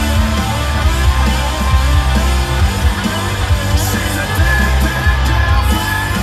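Background music: a rock song with singing.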